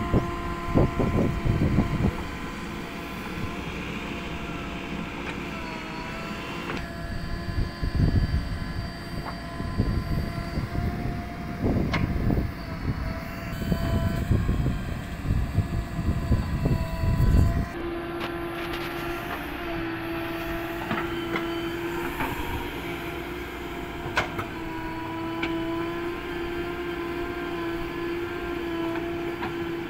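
JCB 3DX backhoe loader's diesel engine running under load while the backhoe bucket digs into soil. Heavy low rumbling surges come and go through the first half. From a little past halfway the engine settles into a steady, even hum.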